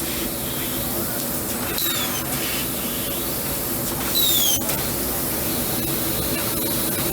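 6000 W fiber laser cutting machine at work: a steady hiss of assist gas at the cutting head over a low machine hum. Brief louder moments with short falling whines come about two and four seconds in.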